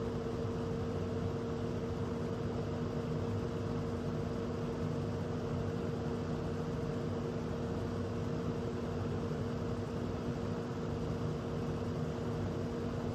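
Easy Home box fan running on low speed: a steady electric-motor hum over an even rush of air from the blades.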